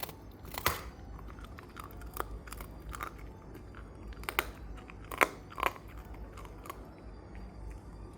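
Shiba Inu gnawing a bone: irregular sharp crunches and cracks about once a second, the loudest about five seconds in.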